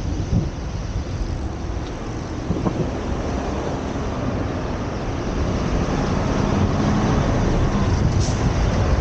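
Low rumbling vehicle noise that grows louder over the last few seconds.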